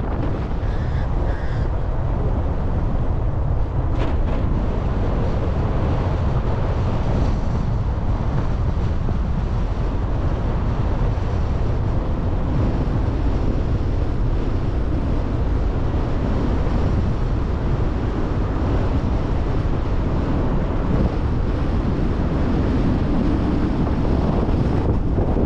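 Steady wind buffeting the microphone: a continuous low rumble with a hiss above it, even in level throughout.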